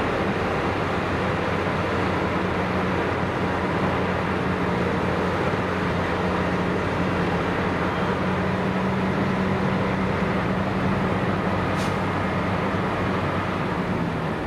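Engine of a heavy vehicle running steadily with a constant low hum, and a short tick about twelve seconds in.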